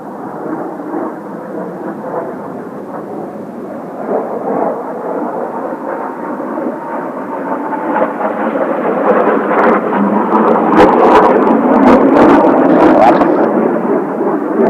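Kawasaki T-4 jet trainers' twin turbofan engines heard as a steady jet rumble that grows louder from about halfway through and is loudest near the end, with rough sharp crackles at its peak.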